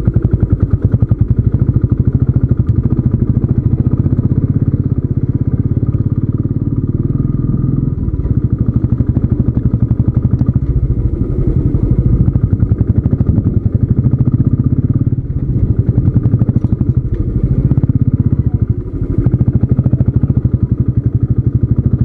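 Royal Enfield Classic 350's single-cylinder engine running under way on a rough dirt track with a fast, even beat. The sound briefly dips a few times along the way.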